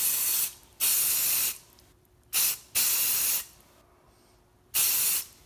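Aerosol spray paint can hissing in a series of short bursts, about five in all, as paint is sprayed onto water for hydro dipping.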